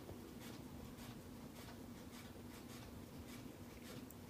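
Faint room tone: a low steady hum with faint, irregular soft ticks.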